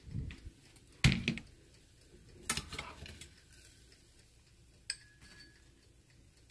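Metal kitchen tongs and dishware knocking and clattering in a few separate bursts, then a single short ringing metal clink about five seconds in.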